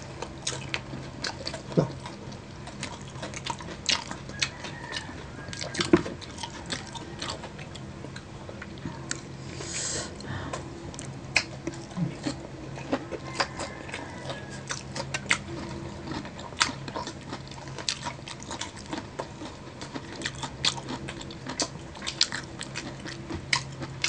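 Close-miked eating of crispy fried chicken wings: crunchy bites and chewing, with many short, sharp crackles scattered irregularly throughout.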